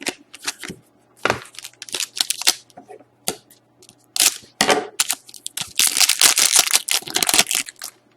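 Trading card pack being crinkled and torn open, with cards rustling in the hands: short crackling bursts, then a longer stretch of dense wrapper crackling in the second half.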